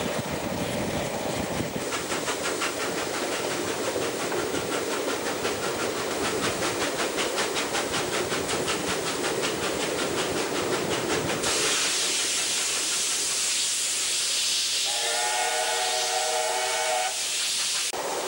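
Steam locomotive 3801, a NSW C38-class Pacific, running with a passenger train, heard from an open carriage window: a fast rhythmic beat of about five strokes a second. About eleven seconds in, the train enters a tunnel and the sound turns to a steady rushing hiss. Near the end the locomotive's steam whistle sounds for about two seconds.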